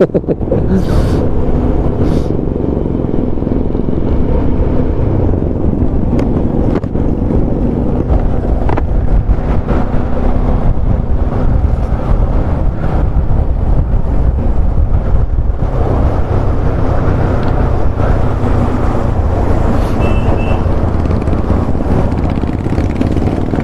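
Motorcycle riding along, its engine and road noise making a steady loud drone that shifts in tone about two-thirds of the way through.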